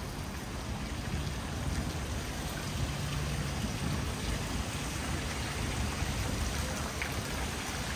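Running water making a steady, even rushing noise.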